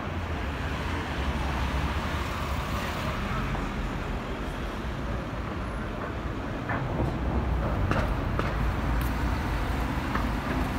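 Street traffic: cars passing with a steady low rumble that swells about two-thirds of the way through, and a few short clicks.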